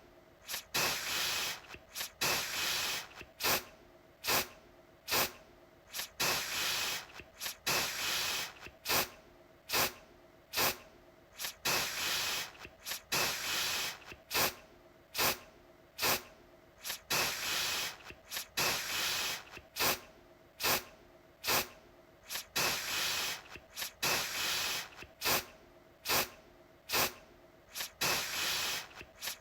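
Aerosol deodorant can spraying over and over, in a mix of quick short puffs and longer sprays of up to about a second, each a bright hiss.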